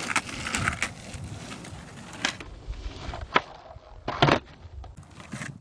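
Skateboard wheels rolling on asphalt, broken by a few sharp clacks of the board popping and landing during flip tricks.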